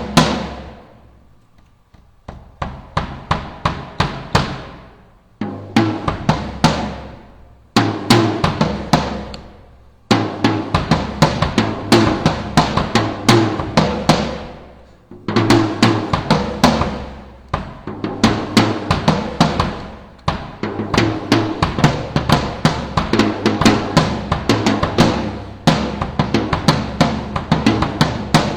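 Ludwig Classic Maple drum kit (22×14 bass drum, 13×9 tom and 16×16 floor tom, with coated Emperor heads on the toms) played in short grooves and fills. Each of the first few phrases stops and rings out briefly before the next; from about ten seconds in, the playing runs on almost without a break.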